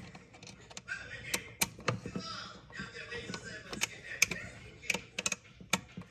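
Hand work on an electrical outlet: irregular light clicks and taps of a screwdriver, wire ends and the plastic outlet as its terminal screws are tightened, several clicks a second.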